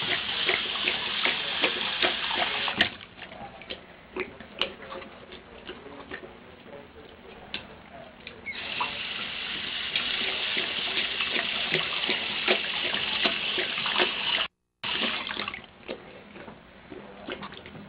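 Bathroom sink faucet running, water splashing into the basin while a dog drinks from the stream. The flow stops about three seconds in, with small splashes and clicks in between, starts again around eight and a half seconds, and cuts off suddenly near the end.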